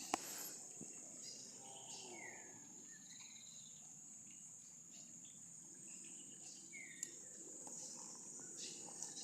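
Steady high-pitched insect chorus, crickets by the sound of it, with two short falling chirps about two seconds and seven seconds in. A sharp click comes right at the start and another about seven seconds in.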